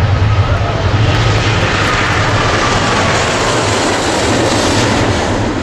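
Airbus A380's jet engines running loud, a broad rushing noise over a low hum that grows brighter and stronger about a second in, with faint gliding whine tones.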